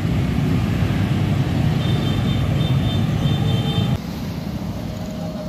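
Road traffic, with motorbikes and cars, passes close by as INKA's prototype battery tram rolls along a roadside track; the sound is a loud, steady low rumble. A high tone sounds on and off for about two seconds near the middle, and the sound drops abruptly to a quieter traffic hum about four seconds in.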